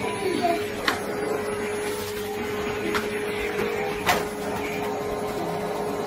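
Canister vacuum cleaner running with a steady hum, broken by a few sharp knocks.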